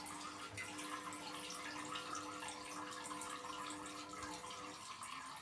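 A cat urinating into a toilet bowl: a faint, steady trickle of liquid into the water.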